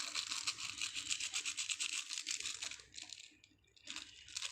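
Scratchy crinkling and rustling of plastic instant-noodle seasoning sachets being torn and squeezed out. It stops about three seconds in and starts again near the end.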